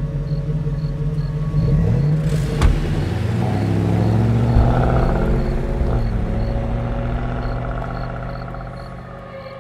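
A car engine revs and drives off, rising in pitch as it pulls away, then fades into the distance over the last few seconds. There is a single sharp knock about two and a half seconds in.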